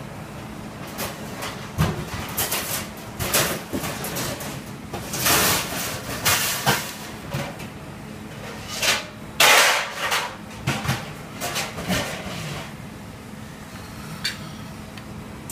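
A metal spoon tapping and scraping against a bowl and a porcelain plate as jelly cubes are spooned out and set down: irregular clicks and short scrapes, the loudest about nine and a half seconds in, over a faint steady low hum.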